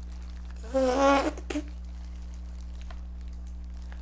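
A short wordless vocal sound from a woman, such as an 'mm' or 'ooh', lasting about half a second about a second in, over a steady low electrical hum. A few faint clicks follow.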